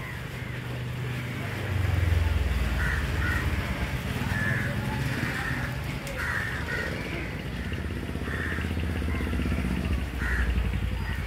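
Crows cawing again and again over the steady low rumble of an engine running, which grows louder about two seconds in.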